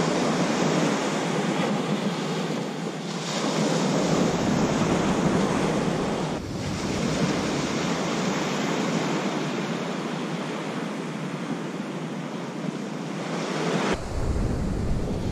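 Ocean surf breaking and washing up the beach, a steady rushing wash. Near the end, wind rumbles on the microphone.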